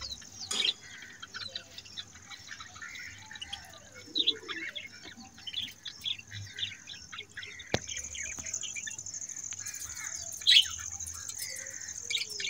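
Birds chirping in short, scattered calls over a steady high-pitched whine that grows louder about halfway through, with one sharp click near the middle.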